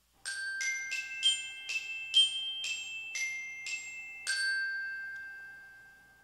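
A short chime jingle of about ten struck, bell-like notes played one after another. The last note rings on and fades away over about two seconds.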